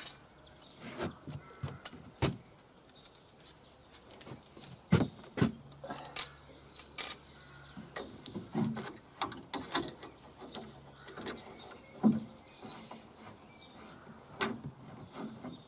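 Scattered knocks and clicks of hand work on a timber wall frame, a few of them sharp and loud. A low steady hum runs for several seconds in the middle.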